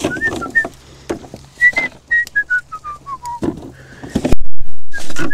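A person whistling a tune in short clear notes, with a falling run of notes in the middle, over footsteps. A loud thump about four seconds in.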